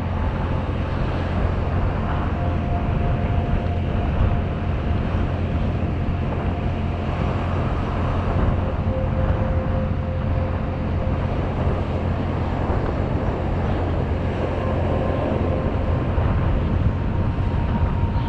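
Strong wind buffeting the microphone as a steady low rumble, over the wash of a beach, with a few faint held tones in the background.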